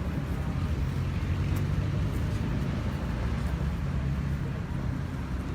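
Road traffic with a steady low engine rumble, as of idling or slow-moving vehicles.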